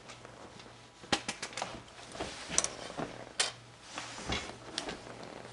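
Sharp plastic clicks and light knocks from hands handling a Dell E6400 XFR rugged laptop's keyboard and case: a quick run of four clicks about a second in, then scattered single clicks.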